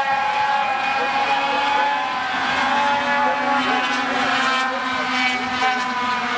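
Several sport truck race engines running together as the trucks circle a short oval, a steady blend of engine notes whose pitches waver up and down as trucks pass.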